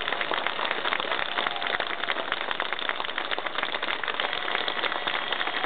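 Crowd applauding, a dense, steady patter of many hands clapping.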